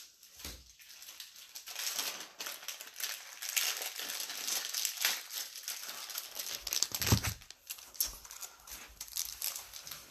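Crinkly plastic packaging being handled, crackling irregularly for several seconds, with a soft thump about seven seconds in.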